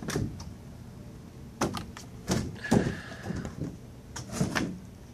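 Large cardboard fireworks kit box being handled and stood upright: a few dull thumps and knocks, with a short scrape of cardboard in the middle, the loudest knock about three seconds in.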